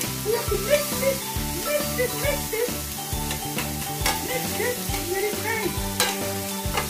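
Diced vegetables sizzling in a hot stainless-steel skillet while being stirred with metal tongs, with a few sharp clicks of the tongs against the pan, the clearest about four and six seconds in. Background music plays throughout.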